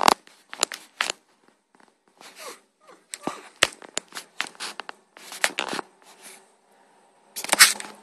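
Irregular sharp clicks and short crackling, scratchy bursts, a cluster at the start and the loudest near the end.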